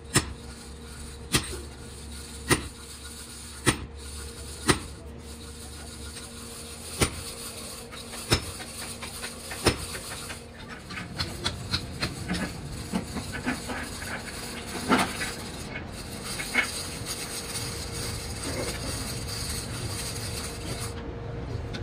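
Screw-type wheel-stud press being cranked on a truck brake drum hub: a sharp metallic click roughly once a second with each stroke of the handle. After about ten seconds the clicks turn smaller and irregular, mixed with scraping and knocking of metal tools.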